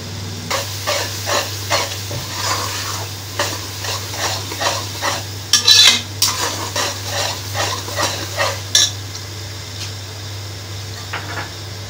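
Metal slotted spatula stirring and scraping an onion-tomato masala in an aluminium pressure cooker, about two strokes a second, with a louder clatter against the pot just before six seconds in. Under it the masala sizzles lightly in hot oil.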